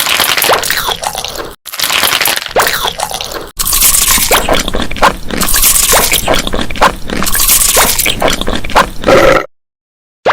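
Close-miked chewing and wet mouth smacking of someone eating pizza, in choppy stretches with two abrupt breaks, cutting off about nine seconds in.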